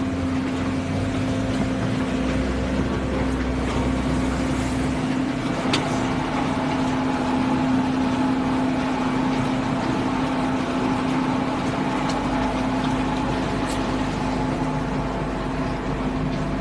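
Forced-action concrete mixer with pump running: a steady mechanical drone with a strong hum, its deepest rumble shifting a few times, and a couple of faint ticks.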